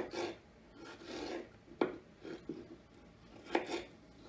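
Kitchen knife cutting raw peeled potatoes on a wooden cutting board: a few slow, separate cuts, each a short scrape through the potato ending in a sharp knock of the blade on the wood.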